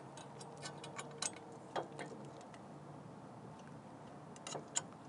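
Light metallic clicks and taps of a hitch pin being worked through the holes of a trailer-hitch flag pole mount: a scatter of clicks in the first two seconds, then two more near the end.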